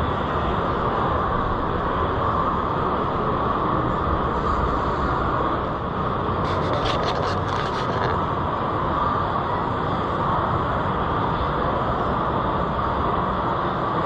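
Steady background din of a large, crowded exhibition hall: many people moving and talking at a distance, blended with the hall's own noise, with a brief bit of light clatter about halfway through.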